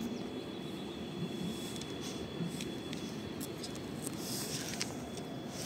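Faint, steady rumble of an ET2M electric multiple unit approaching in the distance, with a hiss in the high range from about four seconds in and a few light clicks.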